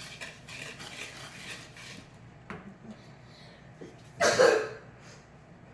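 A whisk stirring dry brownie mix of cocoa powder, powdered sugar and salt in a bowl, rapid scraping clicks that stop about two seconds in. A single loud cough follows about four seconds in.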